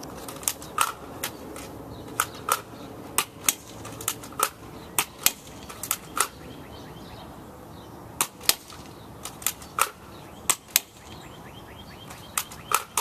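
Nerf blaster firing foam darts: sharp plastic snaps, mostly in quick pairs about a third of a second apart, repeated about ten times.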